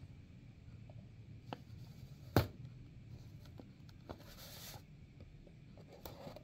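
Faint scratching of a knife blade scoring the seal of a small cardboard box, with a sharp click a little over two seconds in and a short hiss about four and a half seconds in.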